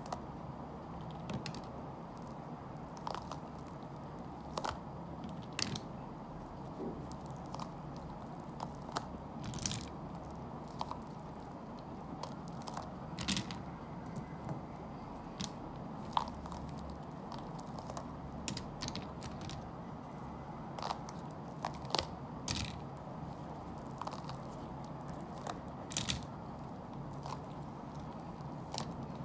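Cured resin domino tiles clicking and clacking against one another and the tabletop as they are popped out of a flexible silicone mould and dropped onto a pile. The clicks are light and irregular, a few every couple of seconds, over a steady low hum.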